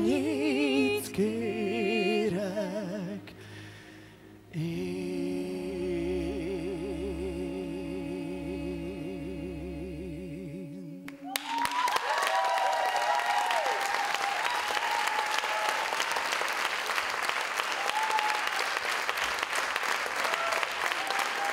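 A woman and a man singing the end of a duet with wide vibrato, holding one long final note together over soft accompaniment. The note stops about eleven seconds in and audience applause breaks out at once, with a few shouts, and goes on steadily.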